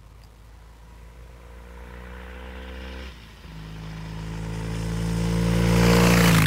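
A 1968 Triumph T120 Bonneville's 650 cc parallel-twin engine running as the motorcycle approaches, growing steadily louder, with a brief dip in the engine note about three seconds in. Near the end it passes close by with a loud rush of engine and road noise.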